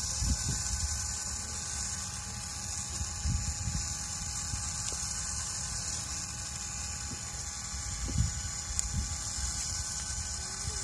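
Small electric rotisserie motor running steadily, turning a spit with a whine of gears, under a steady hiss. Wind buffets the microphone in low rumbles about three times.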